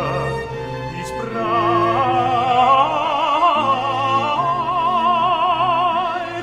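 Background music: a classical, operatic-style vocal piece, a voice holding long notes with strong vibrato over sustained low accompaniment.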